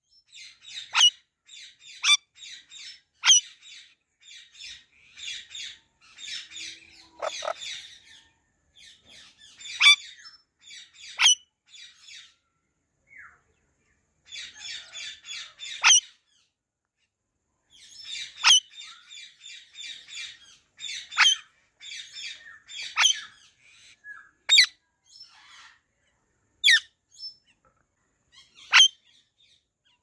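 Alexandrine parakeet chattering at its reflection in short rapid runs, with about a dozen sharp, loud single squawks spread through it and a couple of brief pauses.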